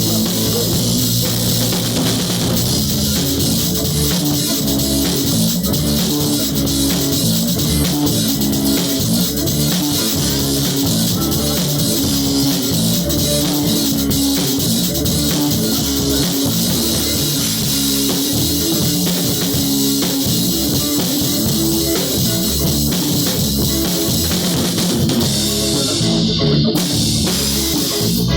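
Rock music with drums and electric guitar, loud and steady throughout.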